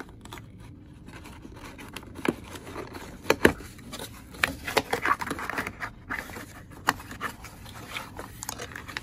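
Cardboard packaging being handled: scraping and rustling, with scattered clicks and knocks and two sharper knocks about three and a half seconds in, as glass candle jars are worked out of a tightly packed shipping box.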